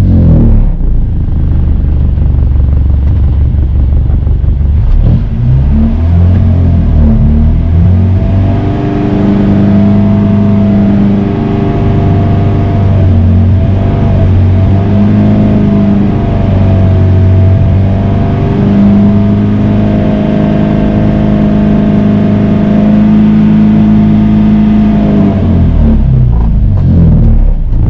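Engine of an outrigger fishing boat running steadily, a loud low drone whose pitch sways slightly now and then.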